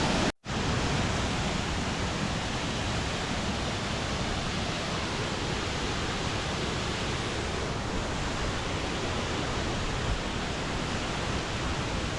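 Waterfall rushing: a steady, dense roar of falling water. It cuts out for a split second less than half a second in, then carries on unchanged.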